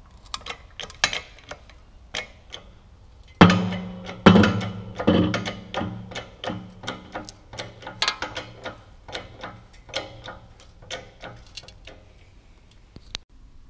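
Homemade bottle-jack press forcing a VW Golf Mk1 front hub out of its wheel bearing: scattered sharp metallic clicks, then a loud bang about three and a half seconds in with the steel frame ringing. A second hit follows a second later, then a run of clicks and knocks that die away.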